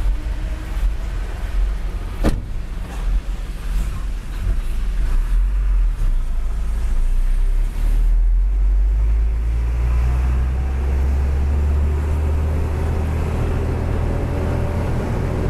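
Hino 500 truck's diesel engine heard from inside the cab, running at a standstill and then pulling away and running under load as the truck moves off, its low rumble growing heavier and steadier. A single sharp knock about two seconds in.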